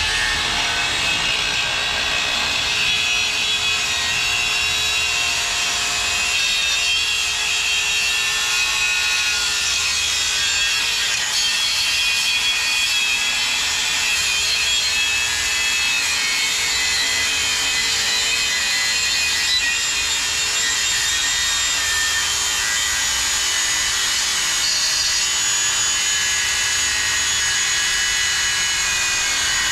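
Angle grinder with a cutoff wheel cutting steadily through the steel shell of a small hermetic pot compressor, a loud continuous grinding whine.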